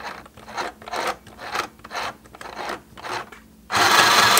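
Small plastic mini sewing machine worked slowly by its handwheel, its needle mechanism rasping about twice a second as it tries to stitch heavy V69 thread top and bottom, which it does not handle. Near the end comes one much louder harsh rasp lasting under a second.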